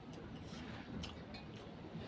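Quiet eating sounds from a child eating noodles with a fork from a steel plate: a few faint, light clicks over a low steady room background.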